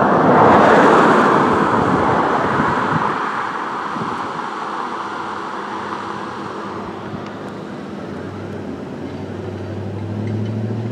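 Road traffic: a vehicle passes close by, its tyre and engine noise swelling about a second in and then fading over several seconds. A low, steady engine hum builds near the end.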